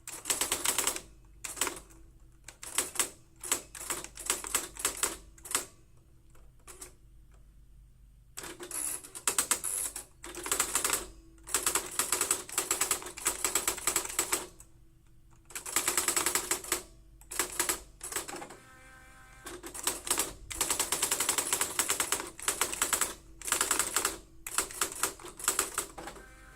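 Olympia Carrera De Luxe electronic daisy-wheel typewriter printing in bursts of rapid, even strikes separated by short pauses. Roughly two-thirds of the way through, the strikes stop for a moment and a brief motor whir is heard.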